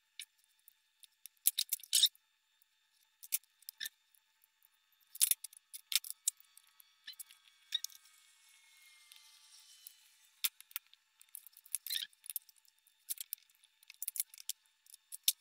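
Wire cutters snipping off wires, heard as scattered sharp snips and clicks, with small tools and parts handled on the workbench in between.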